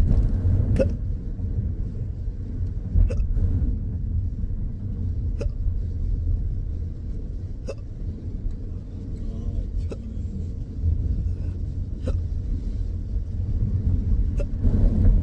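A person's intractable (chronic) hiccups: about seven short, sharp hiccups at a regular pace, roughly one every two and a quarter seconds, over a steady low rumble.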